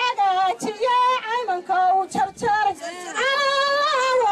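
A woman chanting buraanbur, Somali women's sung praise poetry, solo and unaccompanied, in a melodic line that ends on a long held note about three seconds in.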